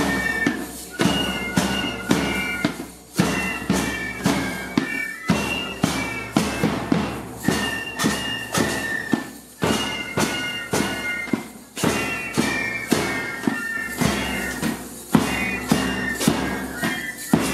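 Music with a steady percussive beat under a high, sustained melody line.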